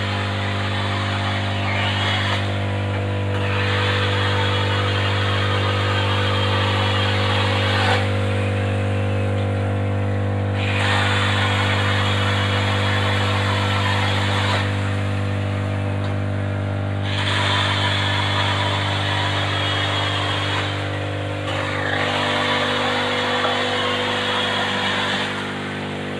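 Workshop machinery running with a steady low hum. A harsher rushing, grinding noise cuts in and out over it in stretches of a few seconds, about five times.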